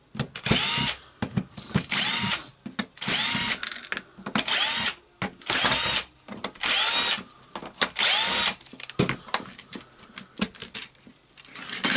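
Cordless driver unscrewing the housing screws of a Makita BDF440 drill, running in about seven short spells, each winding up in pitch and falling back as it stops. Scattered light clicks near the end.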